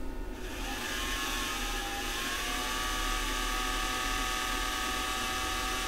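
Small electric cooling fan starting up and then running steadily: an even air hiss with a faint whine whose pitch wavers at first and then holds, over a low mains hum.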